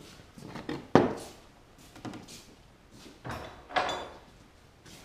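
Knocks and clatter of tools and objects being handled on a wooden workbench: one sharp knock about a second in is the loudest, followed by several softer knocks and clatters.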